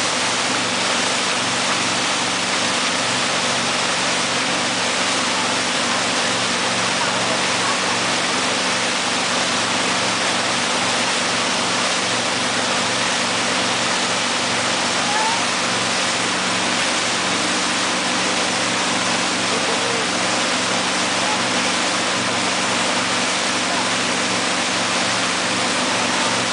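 Speedboat engine running steadily at towing speed, with the rush of the churning wake behind the boat.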